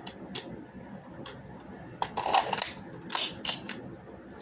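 Plastic toy gun being handled and loaded: scattered sharp clicks and rattles, with a denser, louder clatter about two seconds in.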